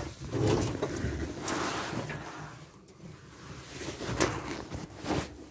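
Rubbing and handling noise from a hand-held phone on the move, with a few sharp knocks and clatters.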